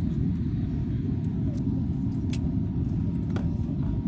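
Steady low rumble of a passenger jet's cabin in the climb, the engines and airflow heard from inside. Two brief clicks come a little past the middle.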